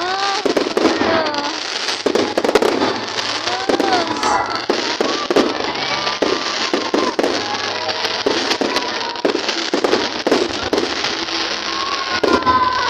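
Aerial fireworks going off in a dense, continuous run of bangs and crackling pops.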